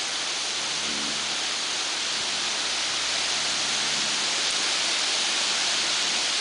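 Wind rustling through aspen leaves, a steady hiss that swells slightly.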